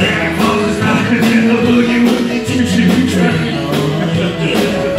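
Live band playing an upbeat rock-and-roll number: electric guitar over a steady beat.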